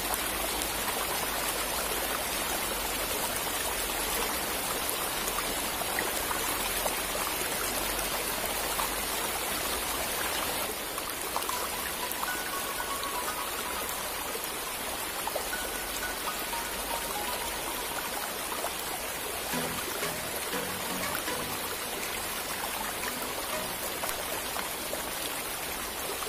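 Steady rush of flowing river water, dropping a little in level about a third of the way in. Faint music comes in during the second half.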